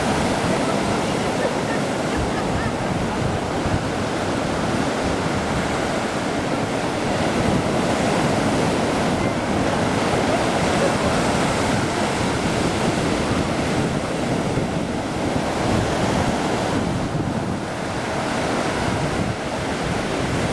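Black Sea waves washing continuously onto the shore, with wind noise on the microphone.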